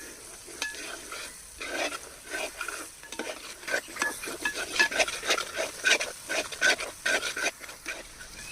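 A spoon or spatula stirring and scraping a frying onion-tomato spice masala in a pan, over a faint sizzle. The strokes come quicker and louder from about halfway through.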